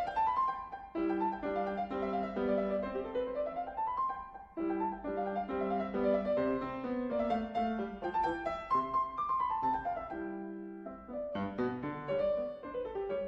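Background solo piano music: a classical sonata movement (Allegro moderato) at a brisk pace, with repeated chords and rising runs of notes.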